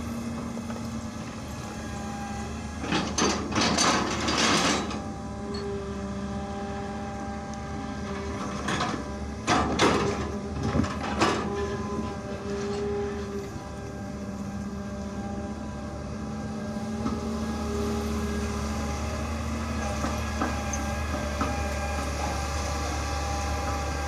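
Hitachi UH07 long-reach excavator's diesel engine running steadily, with two spells of loud scraping and crunching around 3 and 10 seconds in as the bucket digs into the soil. The engine gets louder from about two-thirds of the way through and stays up.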